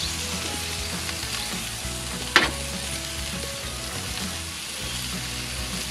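Burgers and hot dogs sizzling on a barbecue grill, a steady hiss, with one sharp click about two and a half seconds in.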